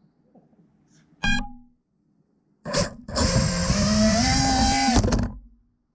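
An upside-down FPV quadcopter's Xing 2208 1800 kV brushless motors firing in bursts to flip it back over (turtle mode): a short blip about a second in, then a loud whine of about two seconds starting near the three-second mark that cuts off sharply.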